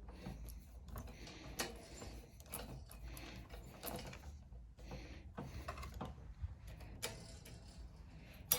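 Faint, irregular clicks and light taps of small metal and plastic parts being handled while a push mower's carburetor and choke linkage are worked on.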